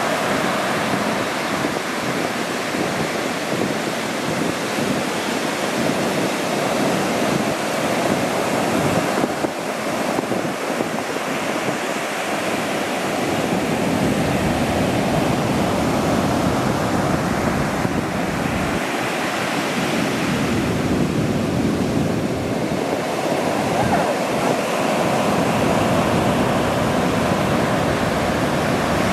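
Ocean surf on a beach break: waves breaking and washing in, a steady rushing noise that eases and builds again.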